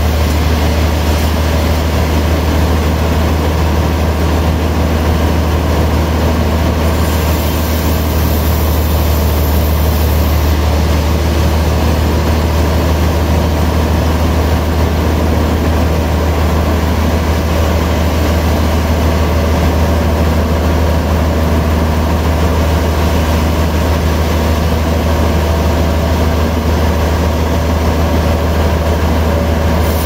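Log band sawmill running with a steady low hum and no change in level.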